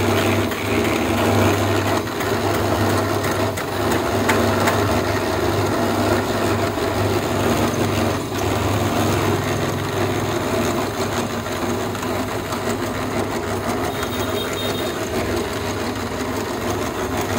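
Electric-motor concrete mixer running steadily: a constant low hum from the motor with a continuous mechanical rattle from the turning drum.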